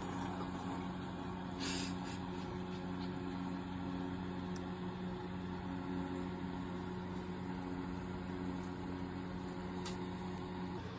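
A steady low machine hum holding several fixed pitches, with a brief light click about two seconds in and another near the end.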